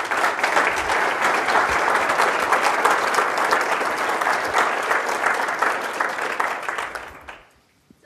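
Audience applauding, many hands clapping in a dense, steady patter that tapers off and stops about seven seconds in.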